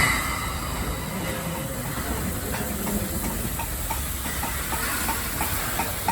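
USATC S160 2-8-0 steam locomotive moving slowly, hissing steam steadily. From about halfway there is a regular light clicking, about three a second.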